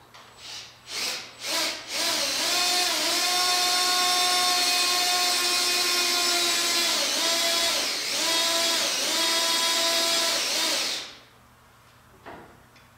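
Handheld power drill driving the bolts of a boring and facing attachment. It gives three short bursts of the trigger, then runs steadily for about nine seconds. Its whine sags in pitch under load a few times near the end before it stops abruptly.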